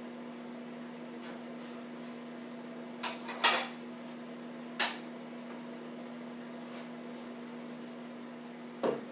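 Microwave oven running with a steady hum while it heats a frozen pizza, and a few light knocks or clicks about three seconds in, at about five seconds and near the end.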